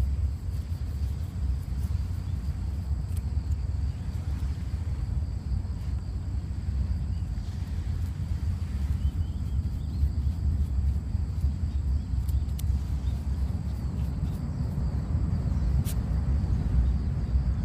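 Wind buffeting the microphone: a steady, gusty low rumble, with a few faint sharp scratches from a puppy digging in sand.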